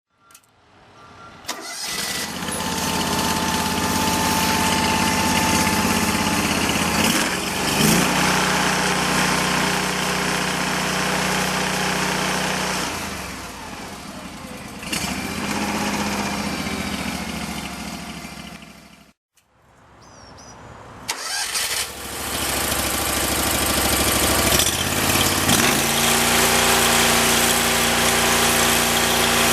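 A 2011 Terramite T5C backhoe loader's engine starting about a second and a half in and then running, its speed stepping up and down a few times. Just after the middle it stops, starts again about a second later, and runs on at a raised speed near the end.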